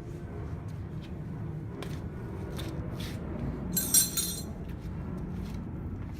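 Metal tools being handled: scattered light knocks and a short, bright metal clink about four seconds in, over a steady low hum.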